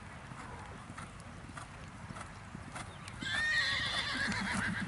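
Soft hoofbeats of a horse moving over a sand arena, then about three seconds in a horse whinnies loudly for nearly two seconds, ending in a few shuddering pulses.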